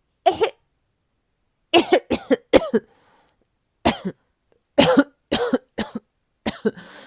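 About a dozen short coughs in several quick clusters: characters coughing as they come down with a cold.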